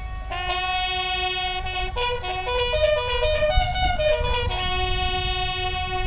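Military band playing a long held chord, then a short run of changing notes about two seconds in, then another held chord.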